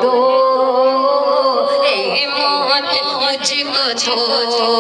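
A voice singing a naat, the devotional recitation of a milad, amplified through a microphone, with long held notes that slide from one pitch to the next.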